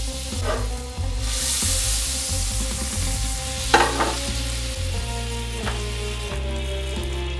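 Butter sizzling and foaming in a hot cast iron skillet, the hiss swelling briefly as the pan is swirled, with a few knocks of the pan and of slices of French bread being laid into it, the loudest a little under four seconds in.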